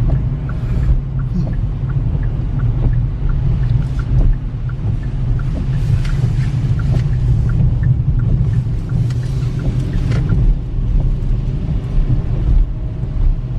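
Road noise inside a moving car's cabin on wet roads in rain: a steady low rumble with hissing from the tyres and windscreen that swells a few times, and the wipers sweeping across the glass.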